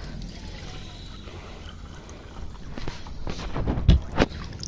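Water running from an outdoor tap and splashing into a steel bowl, followed by a few dull thumps and scuffs of handling and footsteps, the loudest near the end.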